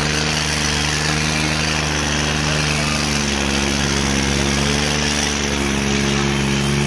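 New Holland tractor's diesel engine running hard and steady while hauling a heavily loaded trailer of earth, its note sagging slightly midway.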